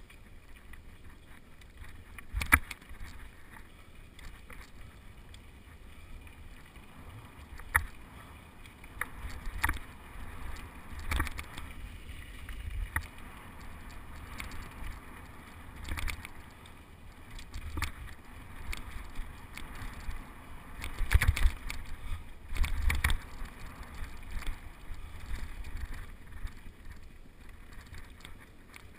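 Mountain bike ridden over a rough dirt singletrack, heard from a helmet-mounted camera: tyres on dirt with a low rumble, broken by irregular knocks and rattles as the bike hits bumps, with a burst of hard knocks about two-thirds of the way through.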